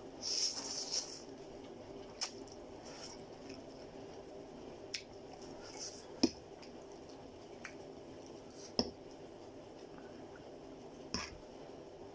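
Wet eating sounds of chicken chow mein being eaten: squishy chewing with a brief hissing slurp right at the start and a handful of sharp single clicks, a few seconds apart, over a steady low hum.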